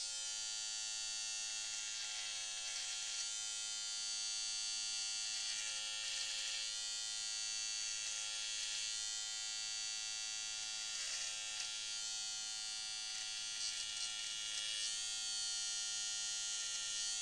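Electric beard trimmer buzzing steadily as it cuts the beard line behind the jaw, its tone wavering slightly a few times as the blade is pressed in and pushed through the hair.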